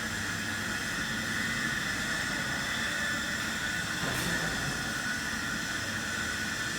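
Steady running noise of glass-processing production machinery: a constant hum with a higher whine over it, unchanging throughout.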